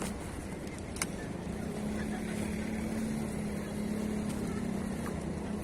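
A boat engine running steadily on the river, a low even hum that dips briefly near the start and comes back. There is a single sharp click about a second in.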